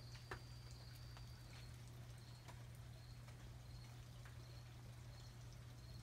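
Near silence at night: a faint high chirp repeating about every two-thirds of a second over a low steady hum, with a few soft clicks.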